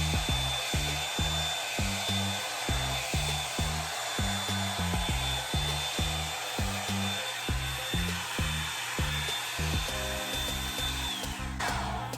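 Revlon One-Step hair dryer brush running, a steady rushing blow with a thin high whine, switched off near the end as the whine drops away. Background music with a repeating bass line plays underneath.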